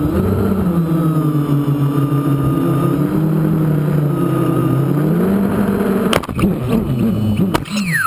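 Mini quadcopter's brushless motors and propellers buzzing steadily, the pitch rising and falling with the throttle. About six seconds in the quad hits the ground with sharp knocks and tumbles, knocks again a second and a half later, and the motors wind down in a falling whine as it crashes.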